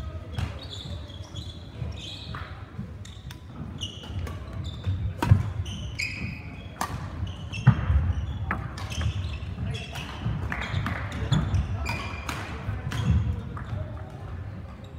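Badminton rally in a sports hall: many sharp clicks of rackets striking the shuttlecock, with short high-pitched squeaks of court shoes on the floor as the players move, in the echo of a large hall.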